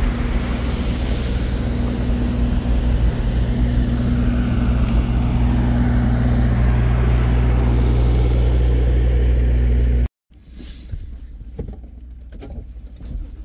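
Trailer-mounted diesel generator running at a steady pitch over the rush of water pouring through a dam spillway. About ten seconds in the sound cuts off suddenly to the much quieter inside of a truck cab, with rain ticking on the roof and windshield.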